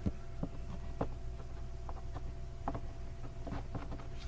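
Trading cards being handled and flipped through by hand: scattered soft clicks and rustles of card stock, over a steady low hum.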